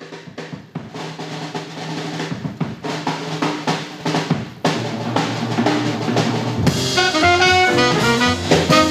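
A jazz drum kit opens the tune with a snare-drum roll that grows steadily louder. About two-thirds of the way in, the trumpet and alto saxophone come in together on the melody over the drums.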